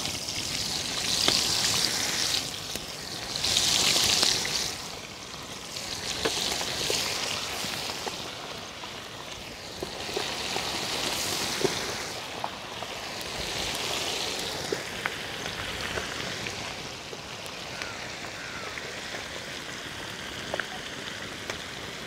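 Quail deep-frying in hot oil in a large iron kadai: a steady sizzling hiss that swells louder several times in the first half, then settles to an even sizzle.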